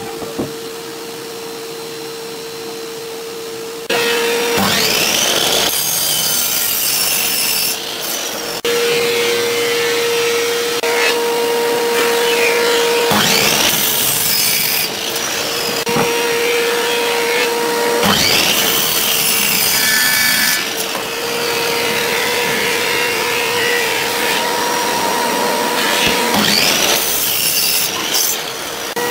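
Stanley miter saw cutting small wooden blocks over and over, about six cuts, starting about four seconds in. The motor's whine rises and falls with each cut, with a steady hum between cuts.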